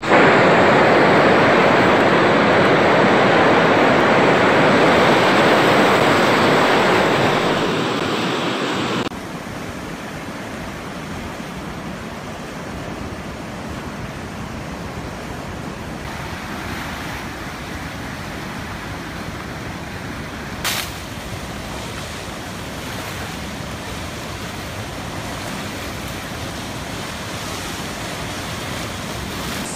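Muddy floodwater rushing in a steady loud roar of noise. About nine seconds in it drops abruptly to a quieter rush, and a single sharp knock comes about twenty seconds in.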